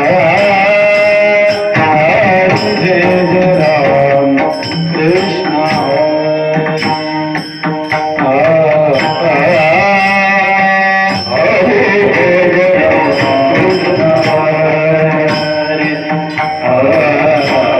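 Marathi bhajan music: a melody held in long, wavering notes over pakhawaj drumming, with a steady rhythm of light high strokes.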